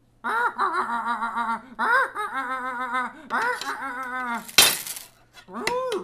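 Home-made vocal sound effects: a person's voice making a run of wavering, sing-song pitched sounds, broken by a short loud burst of noise, like a hiss or crash, about four and a half seconds in.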